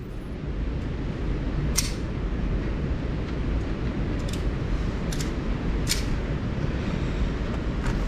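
A steady low rumble with about five short, sharp clicks spread through it, like gear or a gun being handled between shots.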